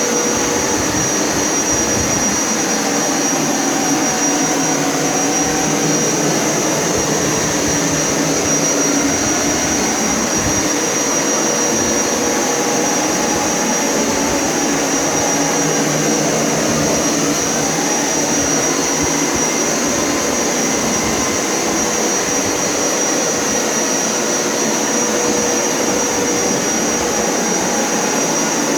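Hoover Power Scrub Elite upright carpet cleaner running steadily while shampooing carpet, its motor noise carrying a constant high-pitched whine.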